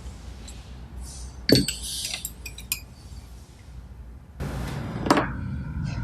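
Small metal parts, the cylinder locking screws and washers, clinking and rattling as they are handled: a sharp clink with a short cluster of ringing clinks about a second and a half in, then a longer rattle with another knock about four and a half seconds in.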